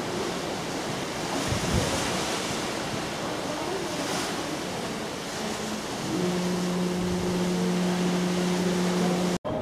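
Steady rush of wind and sea, with a ship's horn sounding one long, low blast from about six seconds in until the sound cuts off abruptly near the end.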